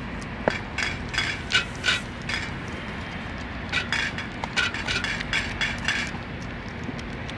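A cat eating from a metal dish: quick, crackly chewing clicks in two bouts, the first about a second in and the second from about four seconds in.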